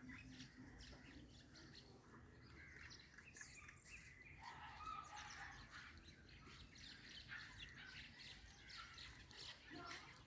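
Sparrows chirping faintly: a busy run of short chirps and twitters.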